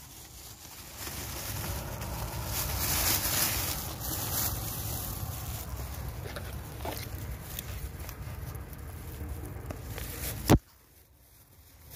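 Dry grass rustling and crackling with handling noise while a steel rat trap is set by hand at a burrow. One sharp click about ten and a half seconds in, after which the sound drops away almost to nothing.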